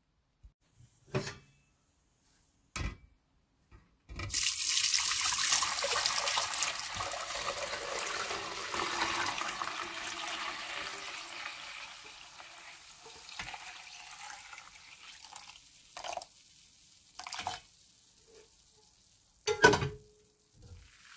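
A few light knocks, then, from about four seconds in, cooled cinnamon-and-ginger tea poured in a steady stream through a stainless mesh sieve into a glass container. The pour splashes at first, then slowly dies down to a faint trickle, with a couple of light knocks near the end.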